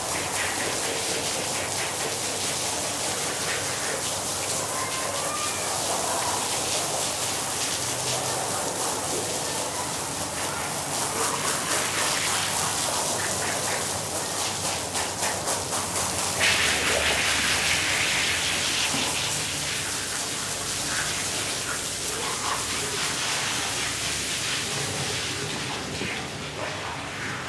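Water spraying and splashing onto a rug being washed, a steady hiss that surges rhythmically for a few seconds midway.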